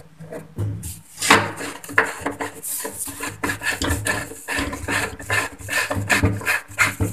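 Plastic flush pipe being twisted and tightened by hand onto the outlet coupling under a toilet cistern: irregular rubbing and scraping of plastic on plastic.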